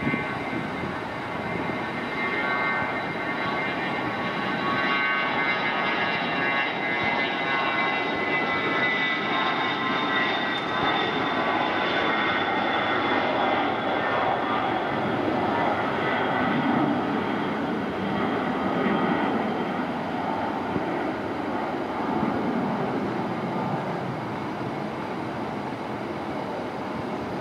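Dassault Falcon 2000 business jet's twin CFE738 turbofans at takeoff power: a steady jet roar with whining tones that slowly fall in pitch as it rolls down the runway and climbs away.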